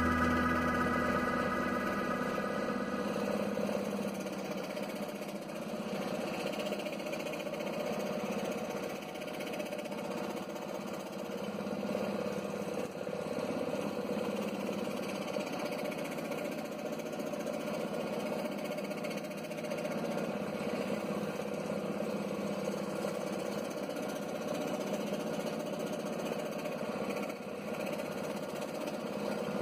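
Scroll saw running steadily as its reciprocating blade cuts a hand-fed workpiece. Organ music fades out in the first two seconds.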